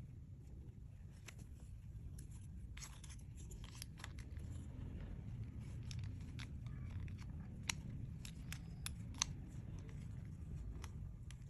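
Glossy clear slime being squished and kneaded by hand, giving scattered sharp clicks and pops that come more often in the second half, over a low steady rumble.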